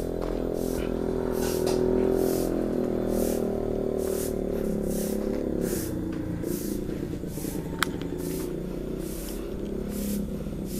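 Stick broom sweeping a bare dirt floor in steady rhythmic strokes, a scratchy swish about every two-thirds of a second, over a steady low hum.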